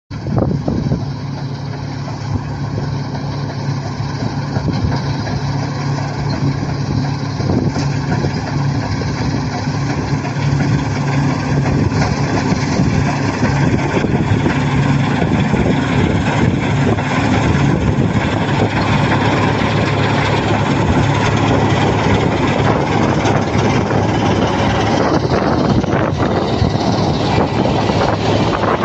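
Combine harvester running steadily, with a constant engine drone under a broad mechanical rush, growing somewhat louder over the first ten seconds or so before holding level.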